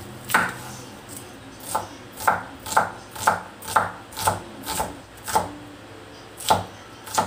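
A cleaver chopping a red onion on a wooden cutting board: about ten sharp knocks of the blade on the board, roughly two a second through the middle, with a longer pause about a second in and another near the end.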